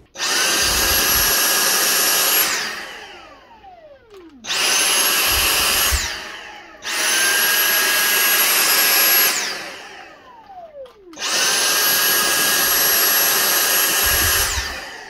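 Dyson V6 cordless handheld vacuum, powered by a replacement lithium-ion battery, switched on four times with its trigger. Each time the motor comes up to speed at once and runs with a steady high whine for about one and a half to three seconds, then winds down with a falling whine when the trigger is released.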